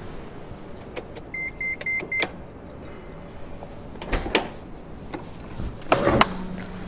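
Four short, evenly spaced electronic beeps inside a car, then a few light clicks and a louder clunk about six seconds in as the trunk release lever beside the driver's seat is pulled.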